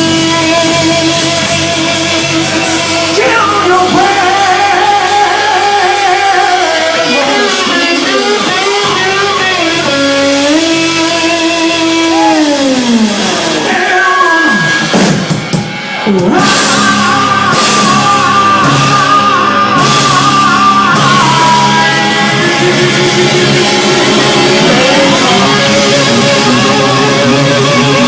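Live rock band playing: electric guitar notes gliding and bending up and down over bass and drums. About halfway through, a long downward slide ends in a brief drop in the sound before the band comes back in full.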